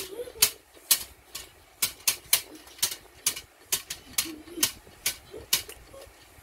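A child beatboxing: sharp, hissy mouth clicks keeping a steady beat of about two a second, with a few short hummed vocal notes between them.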